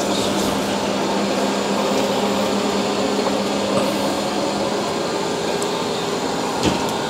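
Shark IQ Self-Empty XL robot vacuum running on carpet, a steady whirring hum. A low tone in the hum stops about five seconds in, and a single click comes near the end.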